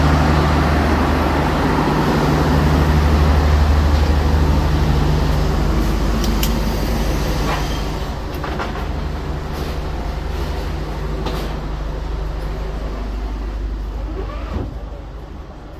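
Diesel train running with a steady low drone, with a few sharp metallic clicks and clanks scattered through it; the drone eases near the end.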